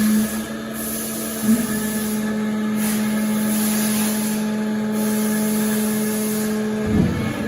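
Door cold press machine running with a steady motor hum, a short change in the sound about a second and a half in and again near the end.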